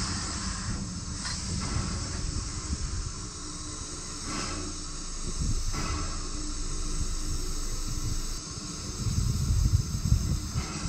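Steam locomotive No. 40 working slowly: a steady hiss of steam venting from its cylinder cocks over a low rumble from the engine and running gear, with a few sharp chuffs. The low rumble grows louder near the end.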